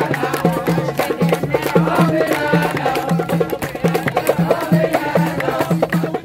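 Folk-style music played by a crowd: a drum keeps a steady beat under quick hand claps and voices singing along.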